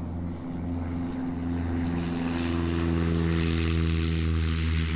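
A propeller aircraft's piston engine running steadily, with propeller noise that builds to a louder rush about halfway through.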